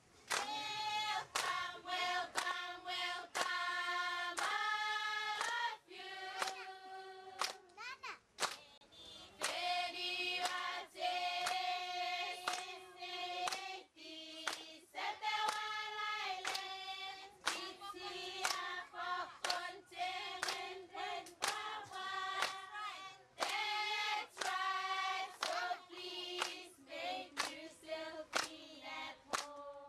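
A group of voices singing a chant together in unison, in long held notes that step up and down in pitch, with sharp hand claps falling between and across the phrases.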